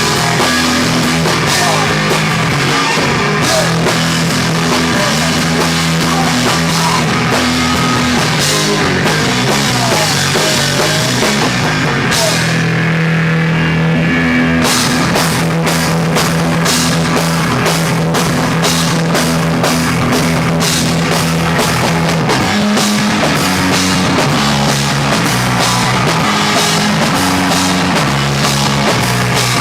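A live rock band playing loud, with a full drum kit and heavy sustained low notes. About twelve seconds in, the drums and cymbals drop out for a couple of seconds, then the full band crashes back in.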